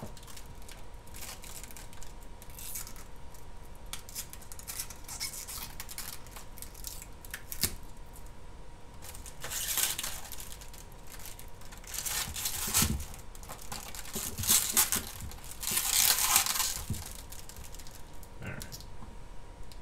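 Thin clear plastic FEP release film and its peeled protective backing crinkling and rustling as they are handled. The noise comes in uneven bursts, loudest in the second half, with scattered small clicks and taps.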